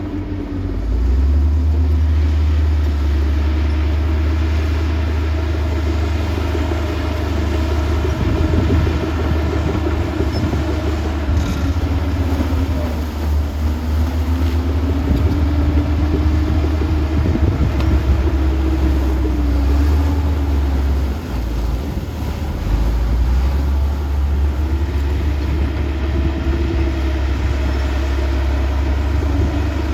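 Heavy diesel earthmoving machinery running under load with a deep, steady rumble. The engine's pitch rises and falls several times as it is throttled up and eased off, with a brief lull a little past the middle.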